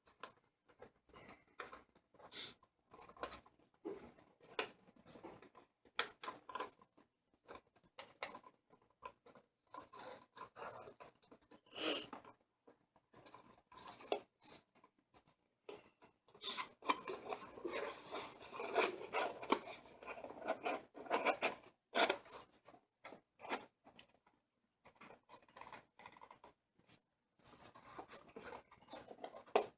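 A boxed CPU's packaging being handled: on and off rustling, scraping and light clicks, busiest a little past the middle.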